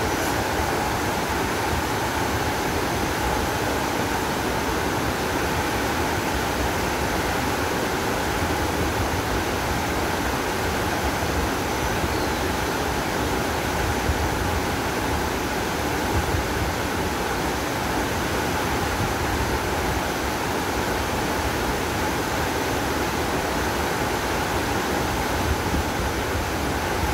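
Steady rushing roar of a large waterfall, heard up close from below.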